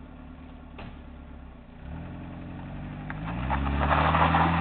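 Ford Taunus car engine idling, then revved hard about two seconds in as the car pulls away, the engine note climbing with a rising hiss of spinning tyres on gravel that is loudest near the end.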